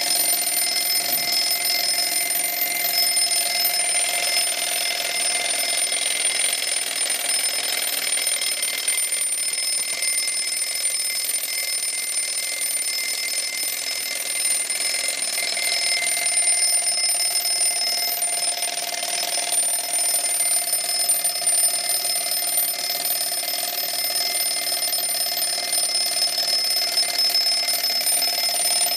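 Antique Junghans mantel alarm clock's alarm bell ringing continuously and steadily, without a break.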